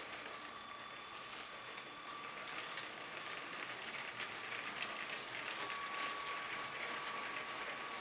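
Motorised LEGO train running on plastic track: its electric motor gives a steady thin whine while the wheels click and rattle over the track joints, with one sharper click just after the start.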